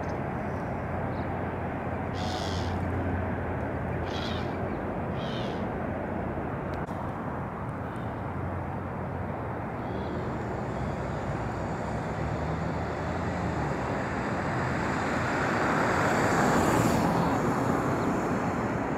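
Outdoor ambience: a steady low rumble of distant engine noise that swells about fifteen seconds in and eases again, as a vehicle passes. A few short high-pitched sounds come about two and four seconds in.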